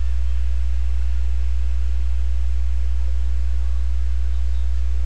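Steady low electrical hum, mains hum in the recording, with a faint hiss above it.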